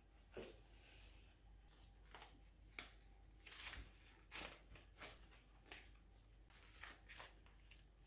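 A foil-lined tea pouch crinkling and rustling in the hands as it is torn open: a string of short, soft crackles.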